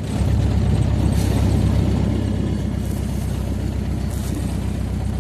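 Open buggy driving over a sandy track: its engine runs steadily with a low drone, under a haze of tyre and wind noise.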